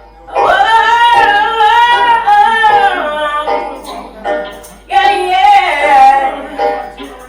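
Music with a woman singing long, gliding notes. Her line breaks off about three and a half seconds in and comes back about five seconds in.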